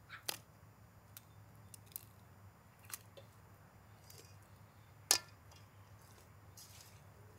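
A few sharp clicks and knocks over a low steady background hum, the loudest about five seconds in.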